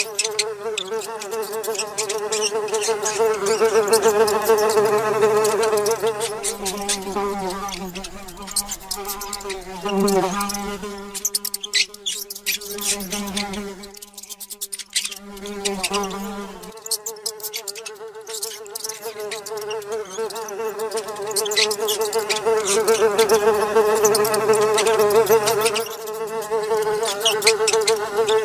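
A fly buzzing in a steady drone, which fades for a few seconds in the middle and then comes back, with many short sharp clicks scattered through it.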